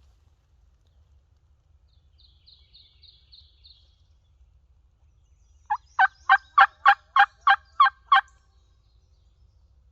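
A series of about nine turkey yelps, evenly spaced at about three a second, loud and close. Before them, a faint run of five high chirps from a small bird.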